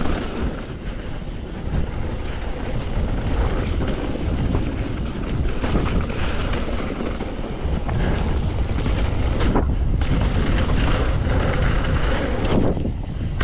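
Wind rushing over the microphone and the rumble of a mountain bike rolling fast down a dirt trail, with a couple of sharp knocks in the second half.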